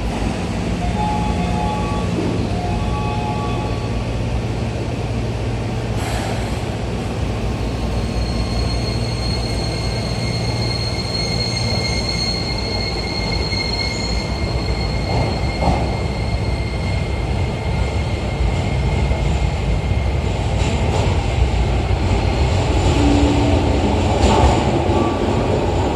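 Toei 12-600 series linear-motor subway train pulling out of an underground station. A steady high whine from its drive comes in about six seconds in as it moves off, over a continuous rumble. Wheel-and-rail noise with growing clatter follows as it runs out of the platform.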